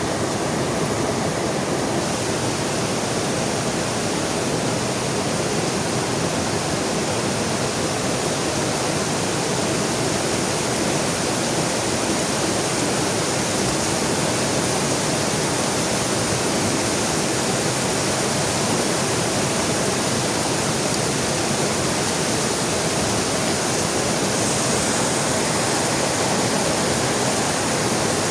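Heavy rain falling beside a river: a loud, steady rush of water noise without breaks.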